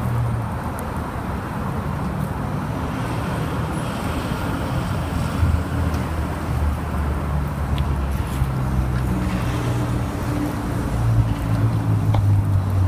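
Steady low rumble of road traffic, with deep sustained tones that shift in pitch a few times.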